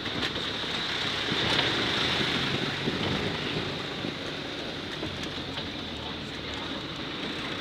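Engine and road noise of a moving vehicle, heard from its open back, with wind rushing over the microphone.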